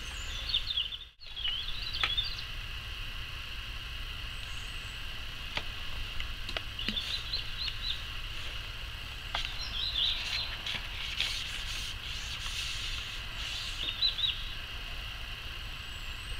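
Small birds chirping now and then over a steady outdoor background hiss.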